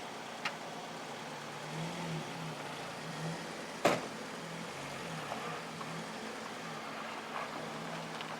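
Saturn car running on a test drive after a transmission swap, a steady low hum that wavers slightly, with one sharp click or knock about four seconds in.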